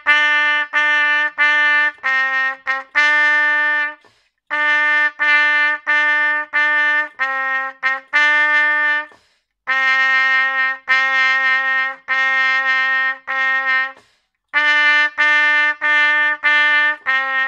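Solo trumpet playing a simple beginner tune: short separate notes on two neighbouring low pitches, in four phrases with a brief breath gap between each. The third phrase is four longer held notes.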